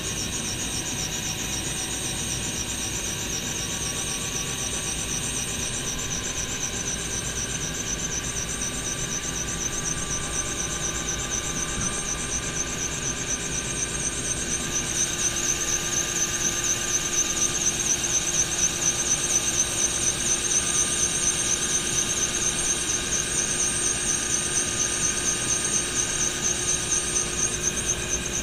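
Helicopter running, heard from inside the cabin: a steady high whine over the noise of the engine and rotor, getting louder from about halfway through with a pulsing beat of the rotor blades as it moves low over the ramp.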